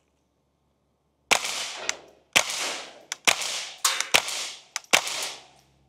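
Five suppressed .22 LR shots from a Ruger 10/22 Takedown rifle fitted with a Dead Air Mask HD22 suppressor, firing Winchester Super Suppressed subsonic ammunition, about one shot a second. Each is a sharp crack with a short hissing tail, with lighter clicks between the shots. The string peaks at 83 dB, which the shooter calls whisper quiet.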